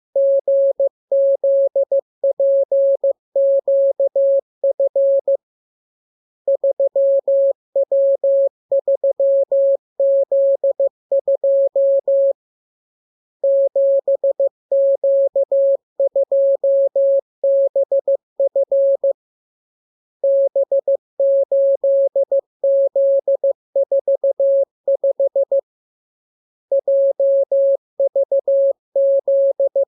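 Morse code sent as a single pure, mid-pitched beep keyed rapidly on and off in dots and dashes: a practice radiogram of code groups, in runs of about five to six seconds with a pause of about a second between them.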